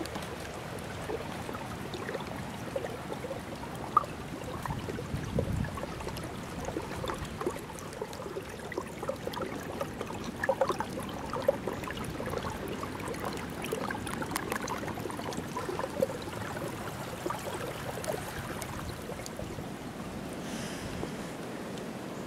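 A small brook running over rocks, trickling and gurgling, with many small splashing blips.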